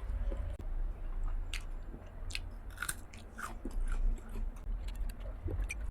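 Close chewing and mouth sounds of someone eating boiled dumplings filled with pickled cabbage and pork cracklings: irregular small wet clicks and crackles of biting and chewing.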